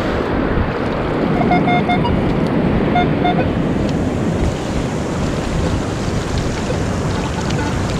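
Ocean surf and wind buffeting the microphone, steady throughout, with a Minelab Equinox 800 metal detector giving a few short beeps about a second and a half in and again about three seconds in, signalling a target.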